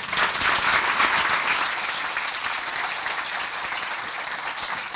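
Audience applauding, loudest in the first second or two and then slowly tapering off.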